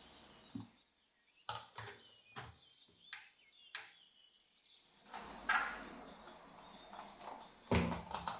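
Kitchen utensils knocking and clattering: about five sharp separate knocks in the first half, then rustling handling noise and a louder clatter near the end.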